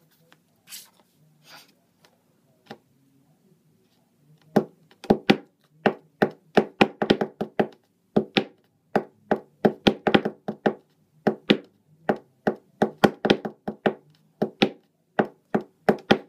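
Hand percussion: a few faint taps, then from about four seconds in a quick, steady rhythm of sharp claps and taps, as a beat laid down before singing.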